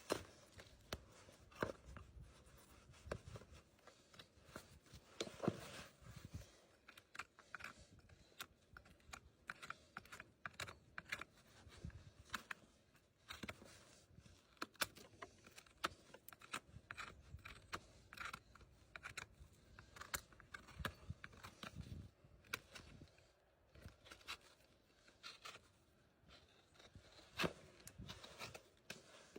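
Farrier's tools trimming a horse's hoof: irregular short cutting and scraping strokes with sharp clicks, many in a row with brief pauses.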